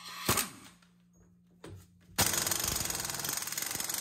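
Compact impact wrench hammering on the large rear axle hub nut of a Daihatsu Mira, trying to break the tight nut loose. A single knock comes near the start, and the rapid hammering starts about two seconds in and keeps going.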